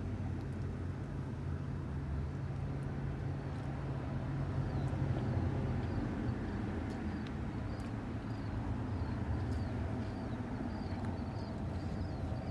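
Steady low rumble of an idling car engine. From about four seconds in, a faint high chirp repeats about twice a second over it.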